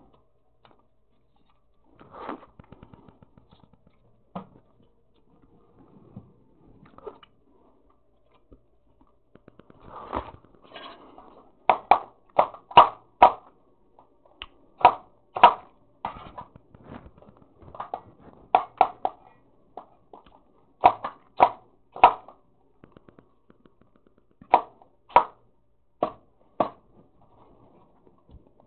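Kitchen knife knocking against a wooden cutting board, sharp knocks in short runs of three or four at about two a second, with a few faint handling knocks before them.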